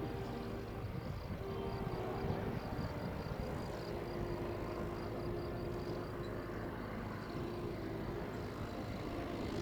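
Small aircraft's engine running steadily at low power as it taxis, a constant low rumble with a steady hum.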